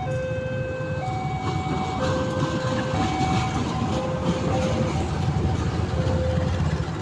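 Railway level-crossing warning siren sounding a two-tone alarm, switching between a low and a higher tone about once a second, over the rumble of a passing train.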